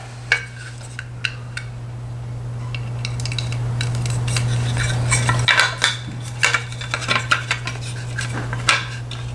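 Hard plastic motorcycle rear fender being handled and turned over: scattered light clicks and knocks, more frequent in the second half, over a steady low hum.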